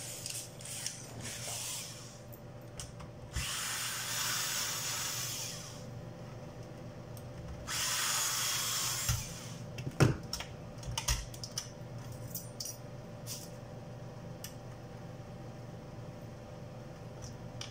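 Cordless electric screwdriver whirring in two runs of about two seconds each while backing out screws, followed by a scatter of light clicks and knocks as loosened screws and a metal bracket are handled.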